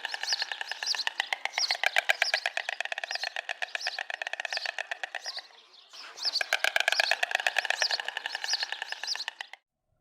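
An animal's rapid chirping trill, a fast run of pulses with a higher chirp about twice a second, in two long bouts with a short break about halfway.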